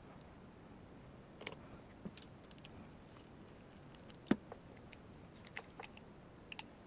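Scattered small clicks and taps of airsoft rifle parts being handled and fitted during assembly, with one sharper click about four seconds in.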